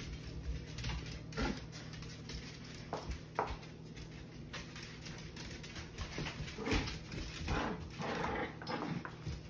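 Dogs playing tug of war over a stuffed fox toy on a tile floor, giving short, irregular play noises that are loudest about seven to eight seconds in, with small knocks and scuffs of their feet on the tiles.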